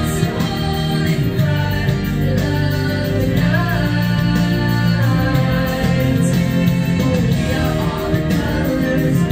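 Music with singing: a sung melody over sustained bass notes.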